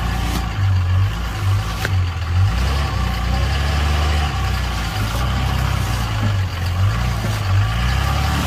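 Pickup truck engine running under load while its stuck rear wheel turns in mud to drive a strapped-on plank under the tyre; the low engine note swells and drops repeatedly as the throttle is worked.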